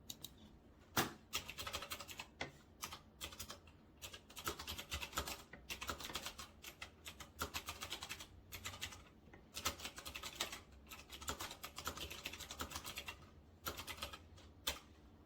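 Typing on an RK Royal Kludge S108 mechanical keyboard with clicky blue switches and round typewriter-style keycaps: fast runs of sharp key clicks broken by short pauses. Very clicky.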